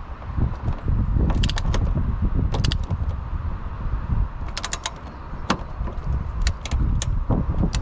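Metal tools clicking and clinking as a torque wrench with socket and extension is fitted onto the strut's top mount retaining nuts, with low rumbling handling noise; the socket does not sit down fully because the stud bottoms out in the extension.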